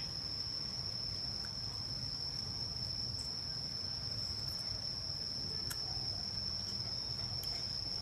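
Steady high-pitched insect trill that holds one unbroken tone throughout, over a low steady rumble, with a few faint clicks.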